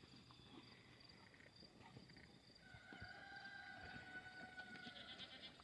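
Faint rural outdoor quiet: a steady high insect drone, with a faint long held tone from about halfway to near the end.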